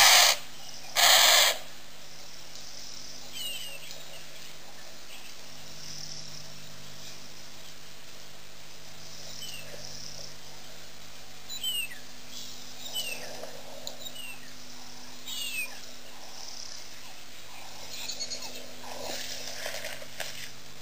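Two loud bursts of rushing noise in the first second and a half. Then a bird gives short, downward-sliding whistles every few seconds over a faint, steady low hum.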